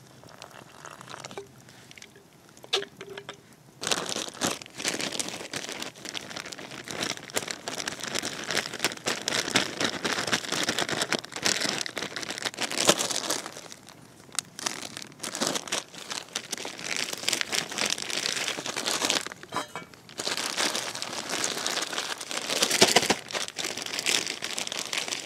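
A bag of bannock mix crinkling and rustling as it is handled and worked, near-continuous crackling starting about four seconds in, easing briefly twice.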